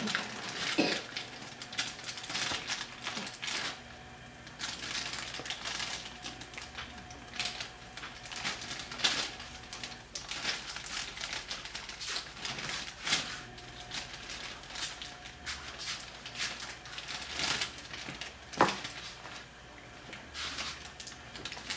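Clear plastic bag of brownie mix crinkling and rustling in short irregular spells as a child's fingers pick and pull at its top, trying to open it.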